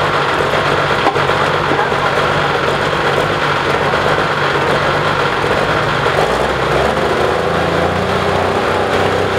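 Limited Pro Stock pulling tractor, a modified Case IH MX275 with a turbocharged diesel, idling steadily at the end of its pull. About six and a half seconds in, its low note grows stronger.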